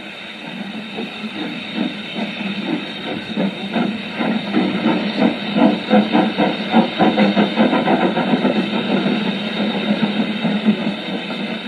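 Steam locomotive chuffing, a rhythmic run of puffs over a steady hiss of steam, growing louder over the first half.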